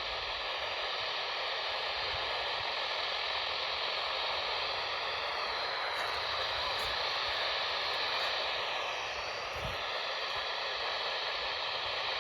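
Steady static hiss from a weather radio receiver between broadcasts, with a faint steady tone beneath it.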